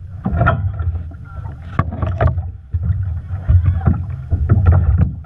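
A 5.0-litre inboard hydroplane engine idling with a steady low, pulsing rumble, while wind gusts buffet the microphone.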